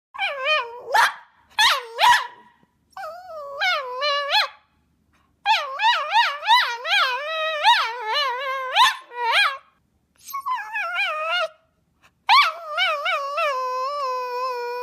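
A tricolour Cavalier King Charles spaniel whining and moaning in long, wavering calls that rise and fall like talking, broken into several bouts with short pauses. The last call, from about twelve seconds in, is held longer and steadier.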